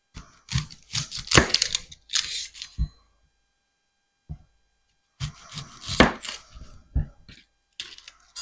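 A sweet onion being cut with a knife and its papery skin peeled, giving crackling, tearing sounds with sharp knife clicks, in two bursts with a pause between.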